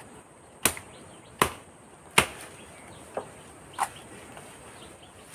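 Machete chopping into a felled fishtail palm trunk. Three sharp chops come about three-quarters of a second apart, the third the loudest, followed by two lighter strikes.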